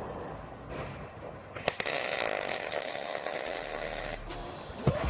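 MIG welder crackling steadily for about two and a half seconds, starting about a second and a half in, as a new radiator support panel is welded onto the car body.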